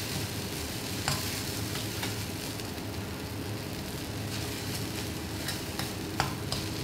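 Thin egg noodles sizzling as they fry in a stainless-steel wok, stirred and tossed with chopsticks, with a few sharp clicks as the chopsticks strike the pan.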